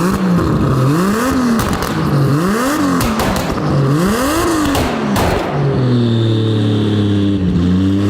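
Turbocharged 3-litre 2JZ straight-six in a Formula Drift car revved three times, each blip rising and falling, then holding a steadier, slowly falling note near the end. It is fitted with a clamp-on fake turbo whistle in the exhaust, and a faint high whistle tone rides over the engine near the end.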